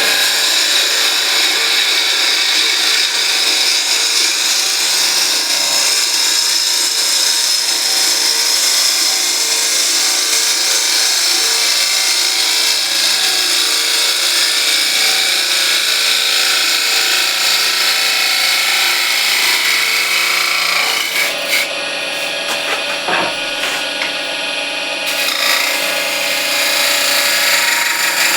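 Bowl gouge making a shear cut on spinning beech on a wood lathe: a steady, loud hiss of the tool edge slicing the wood, which eases off briefly about three-quarters of the way through and then picks up again.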